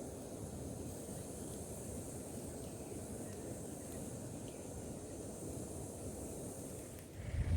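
Rural outdoor ambience: a steady high-pitched insect drone over a low rumble of wind on the microphone, with a louder low thump right at the end.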